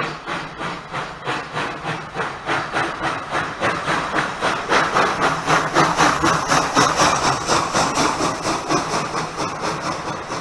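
PKP Ol49 steam locomotive working a passenger train past at speed, its exhaust beating about three to four times a second with a hiss of steam, loudest as the engine goes by. Near the end the coaches roll past behind it.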